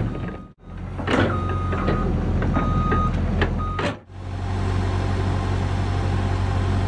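Heavy diesel machine engine running steadily with a deep hum, in two clips broken by abrupt cuts. In the first clip, a high steady tone sounds in short stretches of uneven length, with a few sharp metallic knocks.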